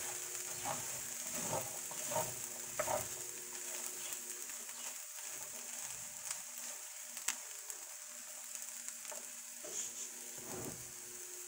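Corn kernels sizzling as they roast in a frying pan, with a spoon scraping and stirring through them in several strokes over the first few seconds and again near the end.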